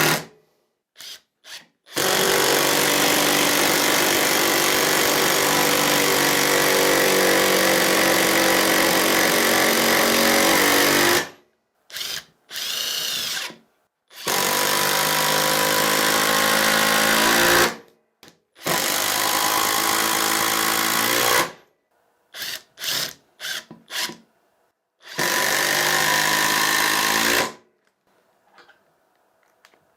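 Parkside Performance PDSSAP 20 Li B2 brushless cordless impact driver hammering in repeated runs: one long run of about nine seconds, then several runs of three to four seconds and a few short blips, each stopping abruptly.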